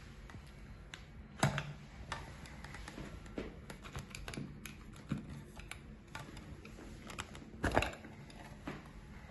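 White plastic suction-cup shower foot rest clicking and knocking against the wall as it is pushed and pulled by hand, with two louder knocks about a second and a half in and near the end.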